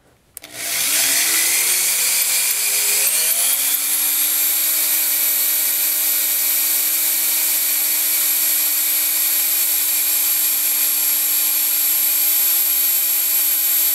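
Electric hand drill with a 5/16-inch bit boring into a metal shaft hub. The motor starts about half a second in and winds up in pitch over the next few seconds, then runs with a steady whine.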